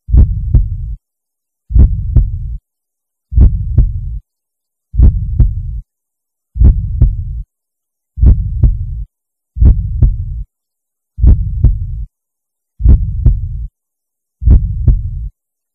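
Heartbeat sound effect: a slow, steady double beat (lub-dub), the two strikes a fraction of a second apart and trailed by a short low rumble, repeating about every 1.6 seconds.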